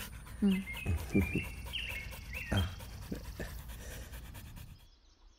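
A dog panting, a run of short breaths with a few brief high chirps over them, fading out near the end.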